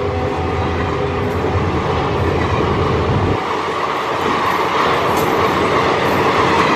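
Train running past with steady, loud running noise. The tail of its horn fades out at the very start. About halfway through, a deep rumble drops away suddenly, leaving a higher rushing sound of the passing cars.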